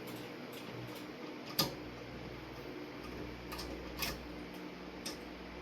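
Scattered small clicks of ceiling fan blade screws being worked loose and handled, the sharpest about a second and a half in and another at about four seconds, over the steady hum of an electric fan running.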